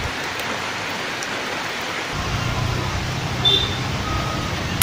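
Heavy rain falling, a steady noisy hiss. About two seconds in, a low rumble joins it.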